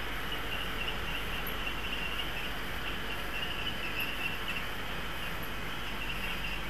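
00-gauge model trains running round the curved tracks of a helix: a steady rolling noise with a high, wavering whine from wheels and motors, over a low hum.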